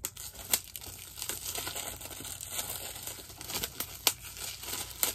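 Plastic shrink wrap being torn and peeled off a Blu-ray case: continuous crinkling and crackling, with a few sharp snaps.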